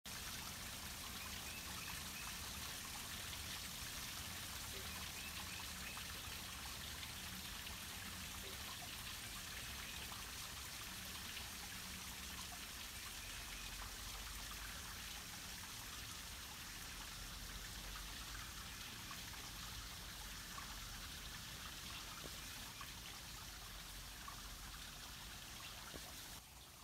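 Shallow stream trickling steadily over a muddy bed, a faint, even water noise that cuts off near the end.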